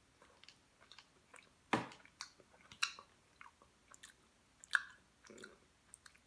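Small plastic packet being worked open by hand: scattered sharp crinkles and crackles, the loudest three about two, three and five seconds in.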